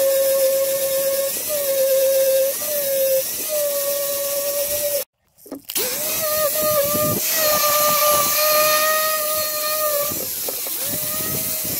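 Electric angle grinder with a wire cup brush scrubbing rust off sheet-metal engine parts: a steady motor whine over the scratching hiss of the wire, its pitch sagging briefly each time the brush is pressed into the metal. The sound drops out for about half a second around five seconds in, then the grinder runs on.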